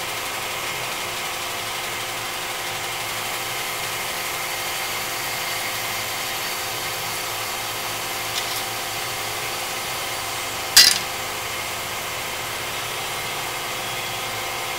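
Hardinge automatic turret lathe running, a steady machine hum made of several steady tones, as the parting tool cuts off the finished part. About eleven seconds in comes a single sharp metallic clank, the parted-off part dropping into the part chute.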